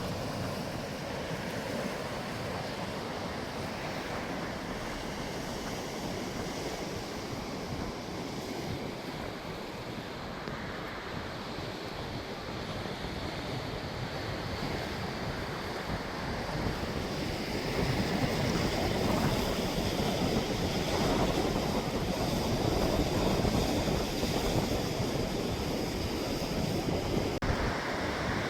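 Sea waves washing against the shore, with wind on the microphone; the surf swells louder about two-thirds of the way through.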